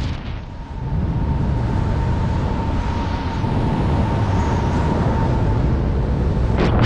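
Wind rushing over the microphone under an open parachute canopy, a steady low rumble, with a faint steady high whistle through the middle.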